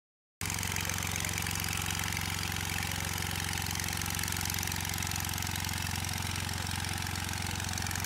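An engine idling steadily with a fast, even pulse, cutting in abruptly about half a second in after silence.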